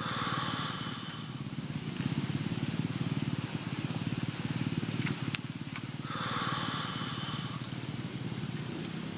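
Argo Lawu passenger train passing close: a steady, fast-pulsing rumble of wheels on rails. A high whine of several pitches at once rises over it twice, at the start and about six seconds in.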